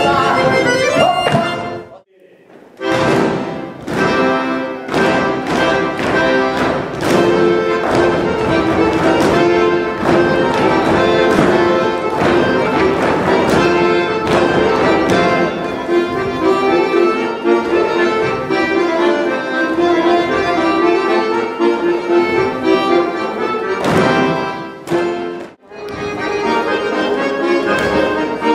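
Accordion-led folk dance music with a steady beat. It breaks off briefly about two seconds in and again near the end.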